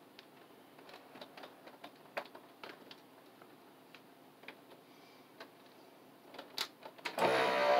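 Scattered light clicks and crinkles of a plastic vacuum-sealer bag being handled and pressed into the sealer, then about seven seconds in the sealer's vacuum pump motor starts with a steady, much louder hum.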